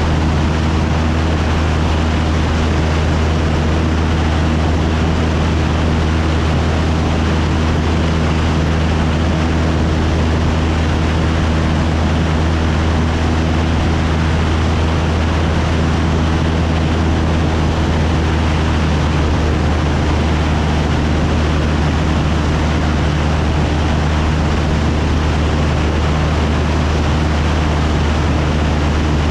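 Cessna 172's piston engine and propeller droning steadily at constant power, heard inside the cabin as a loud deep hum with rushing air noise.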